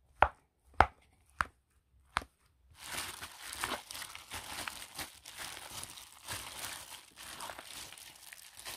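A few sharp knocks in the first two seconds, then a plastic-gloved hand squeezing and breaking up lumps of cooked barley in a pot, the glove crinkling and the wet grains squelching. This is the mixing-in of the second addition of cooked barley to the swindari base.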